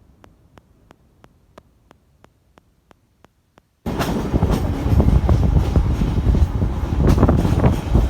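Faint, even ticking about three times a second, then about four seconds in a sudden cut to the loud rumble and rattle of a moving train, with irregular clatter from the wheels and carriages.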